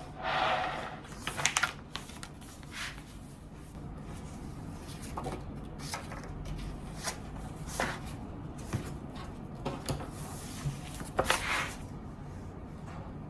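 Indoor handling sounds: a few soft rustles, one at the start and another near the end, with sharp clicks and taps at irregular intervals in between, over a low steady hum.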